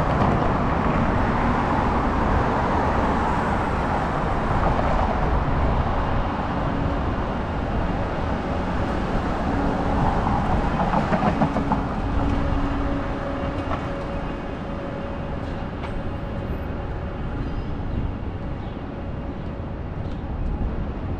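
Downtown street traffic with a streetcar passing through the middle: a steady motor whine rises out of the traffic noise and fades again.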